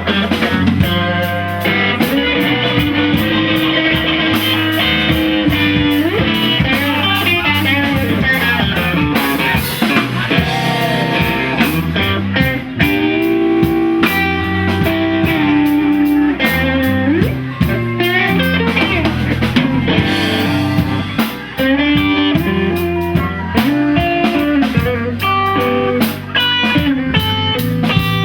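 A live rock band playing an instrumental passage: electric guitar over a drum kit. The guitar notes bend and slide in pitch.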